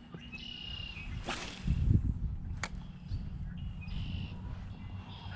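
A fishing rod whooshing through the air on a cast about a second in. A low thump follows, the loudest sound, and then a sharp click.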